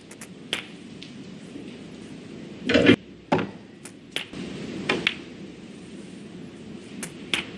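Snooker balls clicking during play: several short, sharp knocks of the cue tip on the cue ball and ball striking ball, spaced a second or so apart, the loudest about three seconds in.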